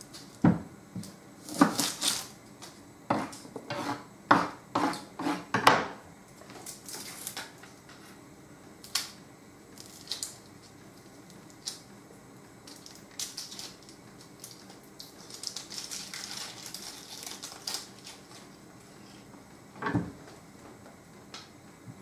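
Kitchen utensils clattering as a knife, chopping board and dishes are handled to prepare an onion. A quick run of knocks and clinks fills the first six seconds, followed by scattered taps and a soft rustle, and one more knock near the end.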